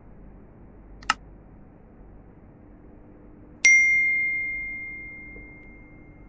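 A single sharp click, then about two and a half seconds later a bright bell-like ding that rings out and fades slowly. These are the click and notification-bell sound effects of a subscribe-button animation. Under them runs a faint steady hum.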